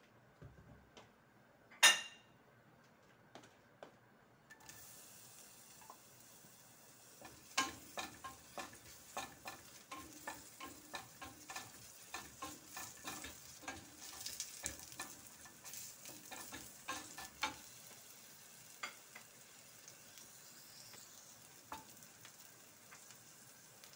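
Sliced onions sizzling in hot cooking oil in a stainless steel pan, starting about five seconds in. They are stirred with a wooden spoon that clicks against the pan about twice a second for around ten seconds. A single sharp knock comes near the start.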